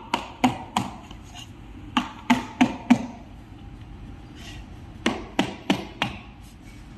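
A rubber mallet repeatedly striking a scooter tyre, hammering it down a tyre-mounting barrel onto the wheel hub. The sharp knocks come in quick runs of three or four, with short pauses between the runs.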